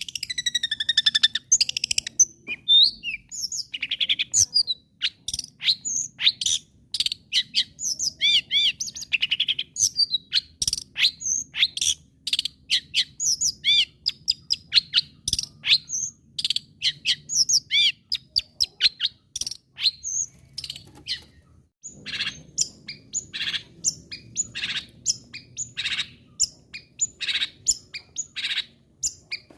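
Long-tailed shrike (cendet) in full, vigorous song: a fast, varied stream of short chirps, harsh notes and whistled glides, with a brief pause about three-quarters of the way through.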